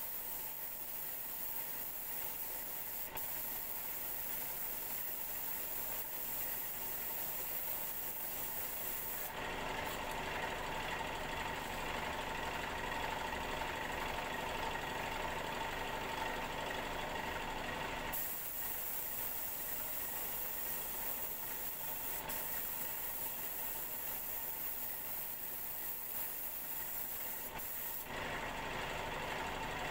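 Compressed-air paint spray gun hissing as paint is sprayed, over a steady machine hum. The spray hiss gives way to the fuller hum about a third of the way in, returns a few seconds past the middle, and drops away again near the end.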